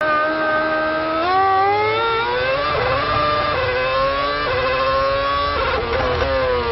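Formula One car's V8 engine heard from the onboard camera, accelerating hard with its pitch climbing and stepping at several gear changes.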